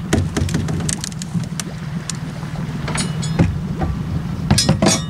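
Small motorboat's engine idling with a steady low hum while the anchor and its line are paid out over the bow: scattered clanks and rattles, a cluster of them near the end.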